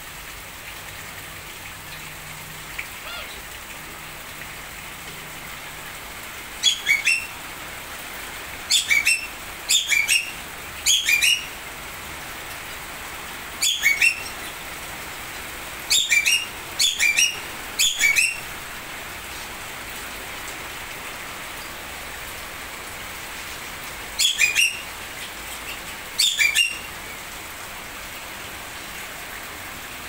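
Aviary birds calling in sharp chirps, grouped in quick runs of two or three notes that each drop in pitch, about ten runs with pauses between, over a steady rain-like hiss.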